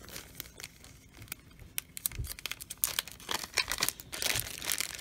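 Small clear plastic zip bag crinkling as it is handled, a string of irregular crackles that grows busier in the last two seconds.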